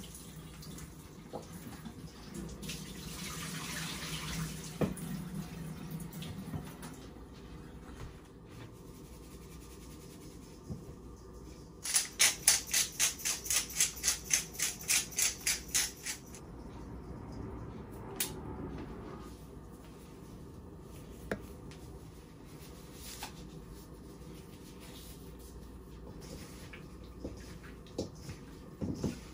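Kitchen work sounds: a tap runs for a few seconds near the start. About halfway through comes a loud, fast rhythmic noise of four to five strokes a second lasting about four seconds, with scattered clicks and knocks around it.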